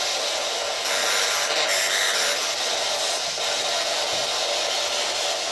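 Spirit box sweeping through radio frequencies, giving a steady hiss of radio static.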